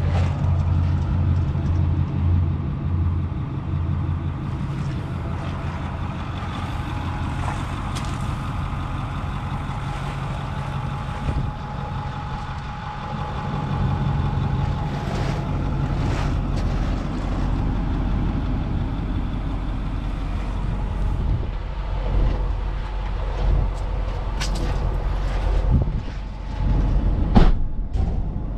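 2008 Ford F-250 Super Duty pickup's engine idling steadily, with occasional knocks and thumps, the loudest near the end.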